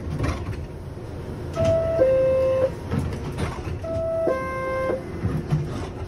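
R62A subway car door chime sounding twice, each time a two-note falling 'ding-dong': a short higher note, then a longer lower one, over the low rumble of the station.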